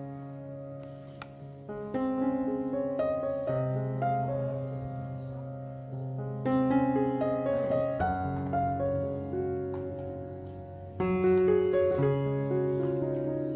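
Background music of slow, gentle piano chords, struck every couple of seconds and left to ring.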